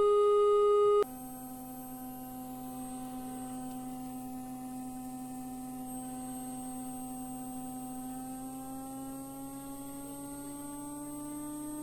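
Steady electronic test tone with overtones. About a second in it drops suddenly to a lower, quieter pitch, holds there, then glides slowly upward over the last few seconds.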